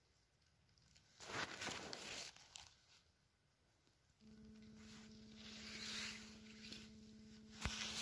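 Dry grass, moss and pine needles rustling as a hand brushes them aside, in a burst about a second in. From about four seconds a faint steady hum runs underneath, and there is one sharp click near the end.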